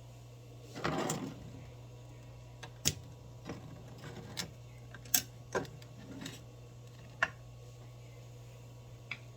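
Kitchen utensils and containers handled during food preparation: scattered light clicks and knocks, about eight in all, with a short scraping noise about a second in, over a steady low hum.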